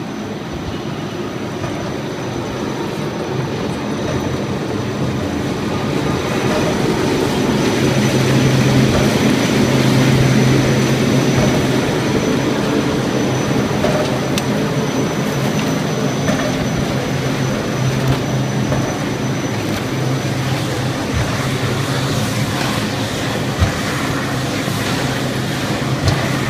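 A spindleless rotary veneer peeling machine running, its motors humming steadily while the knife peels a log into a continuous sheet of veneer. The sound grows louder over the first ten seconds or so, with a thin high whine over the hum for most of it.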